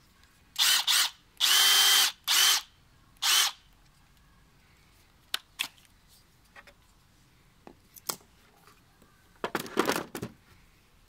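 Bosch GDR 18V-200 C cordless impact driver with brushless motor, free-running without load in five short trigger pulls in the first few seconds. Its motor whines, and the longest pull lasts about half a second. Later come two sharp clicks and, near the end, a short clatter as the tool is set into its hard plastic case insert.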